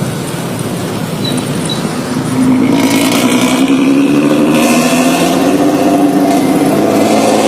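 Vehicle engine running through a loud modified 'ngorok' (snoring) exhaust. It grows louder about two seconds in, then holds a steady note.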